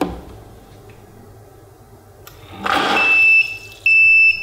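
PolyScience sous vide immersion circulator switched on out of water: a click, a brief rush of noise about two and a half seconds in, then two long high beeps, its overtemperature safety tripping with the dry heater coil before it shuts off and shows the E01 error.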